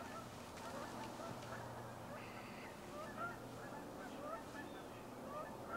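A flock of birds calling: many short, overlapping calls, faint, over a low steady hum.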